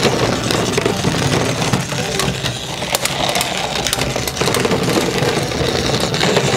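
Battery-powered motor of a Tonka Climb-Overs toy Jeep Wrangler running steadily as the truck drives itself along plastic track, with a few sharp clicks about three to four seconds in.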